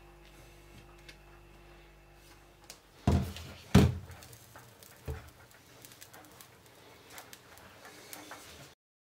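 A metal spoon knocks twice against a nonstick frying pan as it puts in a lump of butter, with one more lighter knock about a second later. Faint scattered crackling follows as the butter starts to melt in the pan.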